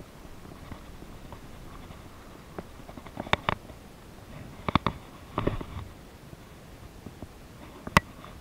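Sharp clicks and taps of a baitcasting rod and reel being handled close up. They come in small clusters from a few seconds in, with a softer rustle in the middle and the loudest single click near the end.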